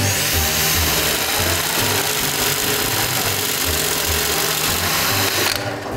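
Cordless drill running at speed, spinning a home-modified fidget spinner fixed in its chuck: a steady high whirring hiss that cuts off suddenly near the end. Background music with a steady bass beat underneath.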